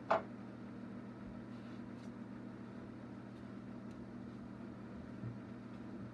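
Steady low electric hum, as from a motor or fan, with a short clatter right at the start and a soft thump about five seconds in.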